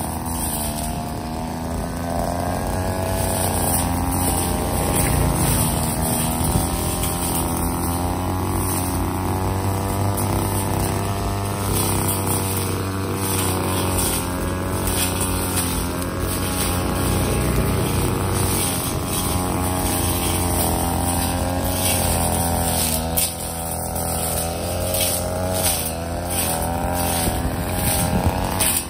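Mitsubishi TL23 brush cutter's small two-stroke engine running at low throttle while cutting grass and reeds. Its note wavers up and down as the blade takes and sheds load, with frequent short swishes of the cutting head through the vegetation.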